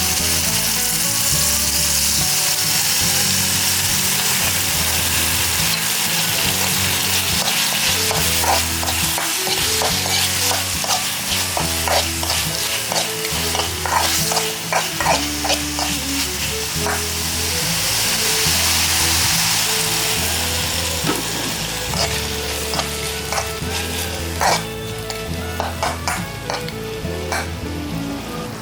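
Spicy chicken stir-frying in a hot pan, sizzling steadily. From about eight seconds in, the spatula clicks and scrapes against the pan again and again as it is stirred.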